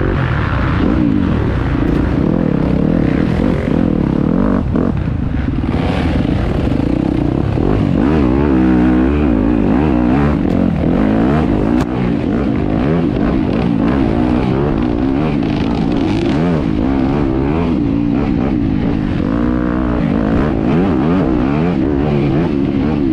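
Enduro dirt bike engine being ridden hard off-road, the revs rising and falling continually as the rider works the throttle and gears, with rattling and scraping from the bike.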